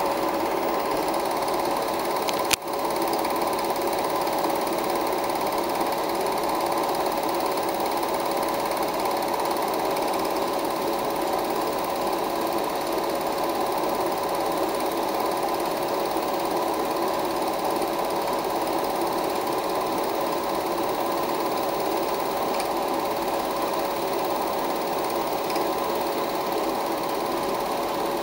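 16mm film projector running steadily, with a single click about two and a half seconds in.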